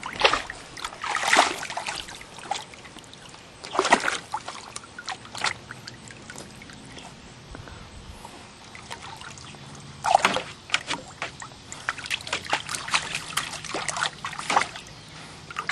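Water splashing and sloshing in a small pool as an animal paws at it, in irregular sharp splashes with quieter trickling between and a quick run of splashes near the end.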